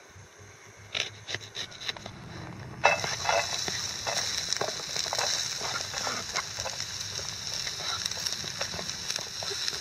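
A few knife cuts through a spring onion on a plastic lid. About three seconds in, sliced spring onion starts frying in a small camping pan, with a steady sizzle and crackle.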